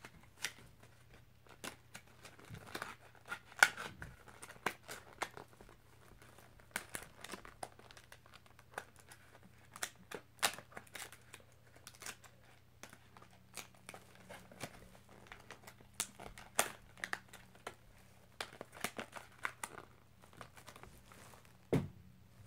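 Plastic lure packaging and a plastic shopping bag crinkling and crackling as they are handled, in sharp irregular clicks.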